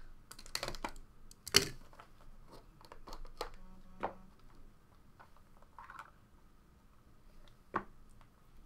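Hands handling a cardboard trading-card box and a stack of cards: scattered light taps and clicks, the loudest about one and a half seconds in.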